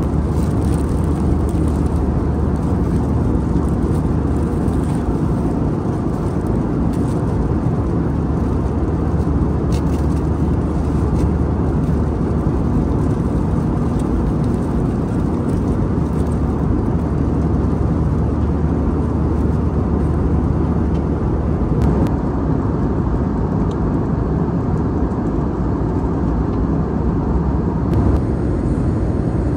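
Steady engine and airflow noise inside the passenger cabin of an Airbus A320 in flight, a low, even rumble with no change in pitch.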